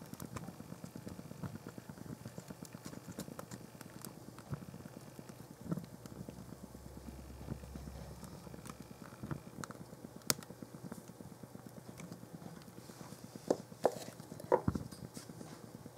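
Open fire crackling as white canvas plimsolls and paper burn in a fireplace grate: a steady patter of small crackles with a few sharper pops, several of them close together near the end.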